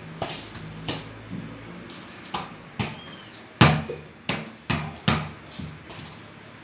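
Football being kicked and bounced off bare feet and a tiled floor: a string of sharp thuds, a few spread out at first, then quicker at about two a second from about halfway, the loudest one about three and a half seconds in.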